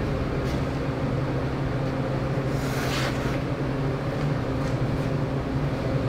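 Steady mechanical hum of running shop machinery, with a brief hiss about three seconds in.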